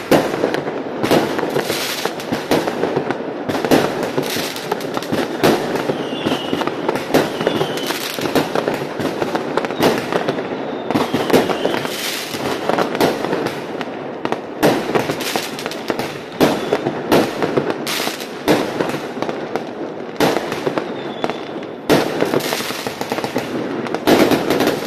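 Aerial fireworks going off close by: a dense, unbroken run of sharp bangs and crackling as shells launch and burst overhead.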